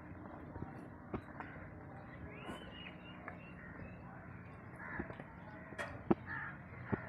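Faint outdoor farmyard background with birds calling, including crow caws, and a few sharp knocks, the loudest about six seconds in.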